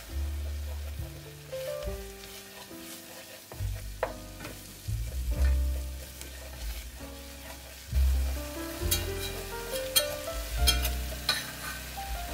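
Stirring and whisking in a stainless steel pot, with scrapes and clicks and a light sizzle, as flour cooks into butter and onion to make a roux. Instrumental background music with deep bass notes plays throughout; the clicks come in clusters near the middle and toward the end.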